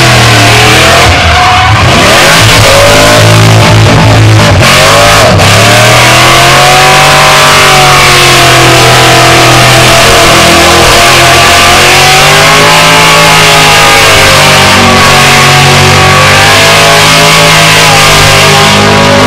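Car engine held at high revs through a burnout, its pitch wavering up and down, with the rear tyres spinning and hissing on the pad. Loud and distorted.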